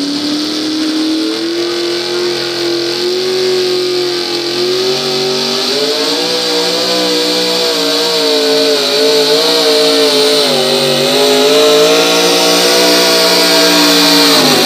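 Pickup truck engine held at high revs under heavy load as it pulls a weight-transfer sled, its revs climbing in the first couple of seconds and then wavering. The revs dip briefly about two thirds of the way through, then drop sharply right at the end as the throttle comes off.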